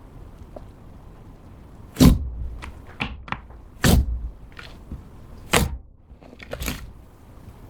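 Glossy slime being pressed and poked by hand, giving about half a dozen sharp wet pops and clicks, the loudest about two and four seconds in.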